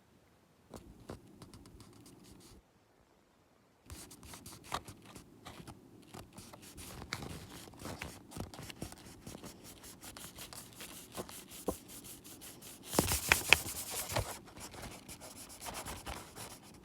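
Paper and material being handled: rustling, scratching and small clicks that start about four seconds in, with a louder rubbing burst around the two-thirds mark.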